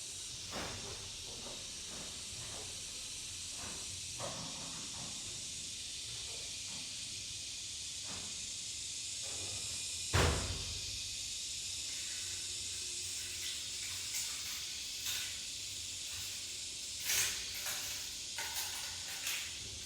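Steady high hiss with scattered light knocks and clicks, and one louder low thump about halfway through.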